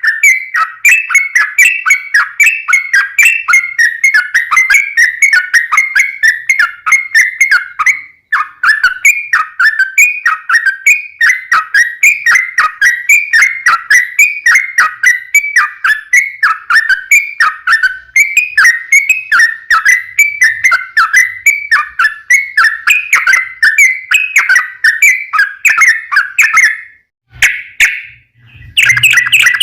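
Yellow-vented bulbul (trucukan) singing a long, fast, unbroken run of short repeated whistled notes. The song breaks off briefly near the end, then resumes.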